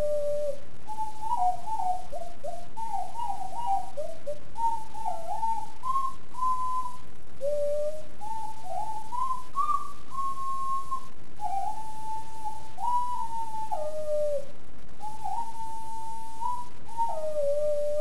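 Extended-range sweet potato ocarina from Songbird Ocarinas playing a melody in pure, whistle-like notes: a held low note, then a quick run of short notes, then slower phrases of held higher notes, settling back onto a long low note near the end.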